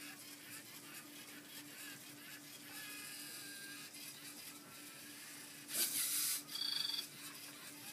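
Faint steady hum of a LEGO Mindstorms EV3 robot's motors as it drives along a line. About six seconds in comes a short loud hiss, followed by a high buzzing two-tone chirp.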